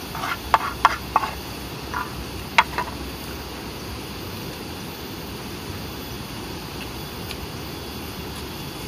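A few short clicks and taps in the first three seconds as fingers pick at rice and small cooked shells on a leaf, over a steady outdoor hiss.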